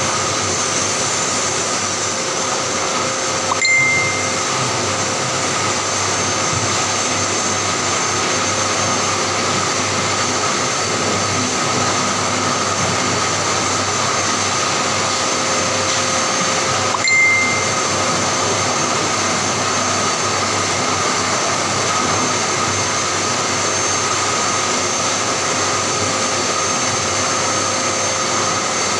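Pet grooming vacuum with a hose-fed clipper running steadily while shaving a Persian cat's coat, with two short high tones about four and seventeen seconds in.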